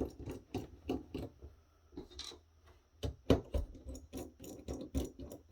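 Hands handling small computer parts and tools: irregular clicks, taps and light rubbing, with the sharpest knock a little past halfway.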